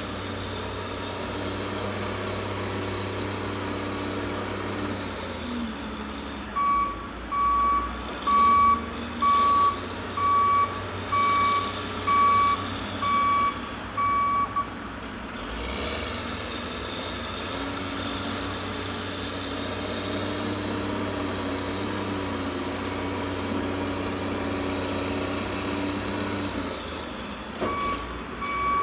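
Heavy diesel machinery at a mulching yard running steadily. A backup alarm sounds about ten evenly spaced beeps, a little under one a second, from about a quarter of the way in to about halfway, then starts again near the end.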